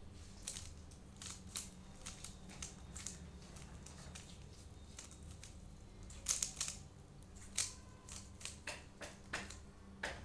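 A plastic 3x3 Rubik's cube being turned by hand: irregular clicks and clacks as its layers snap round, coming more often in the second half.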